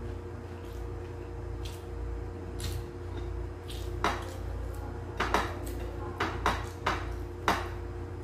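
Tableware clinking at a meal: a string of sharp clinks of cutlery and dishes, mostly in the second half, over a steady low hum.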